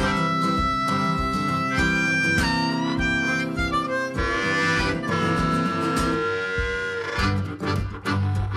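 Background music: a harmonica melody over guitar, with a steady beat.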